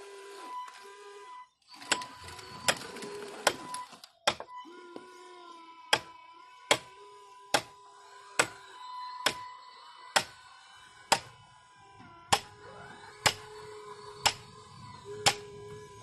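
Radio-controlled hydraulic excavator model working: its hydraulic pump whines steadily, the lower part of the whine dropping out and coming back as the controls are worked. Sharp clicks repeat about once a second through most of it.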